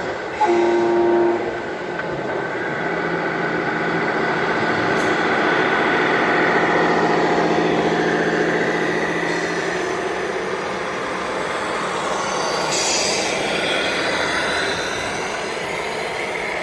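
A short horn blast of several tones together about half a second in. After it comes a steady mechanical drone, with a high squeal rising and falling about thirteen seconds in.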